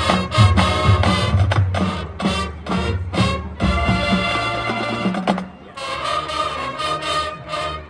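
High school marching band playing: punchy, rhythmic brass hits over drums, then held brass chords for the second half.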